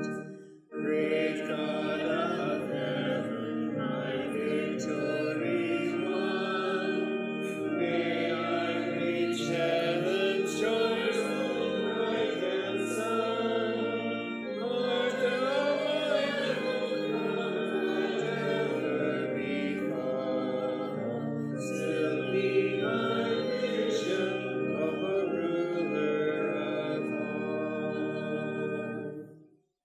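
Congregation singing a hymn, many voices in held notes over a steady low accompaniment. A brief break comes about half a second in, and the final chord fades out just before the end.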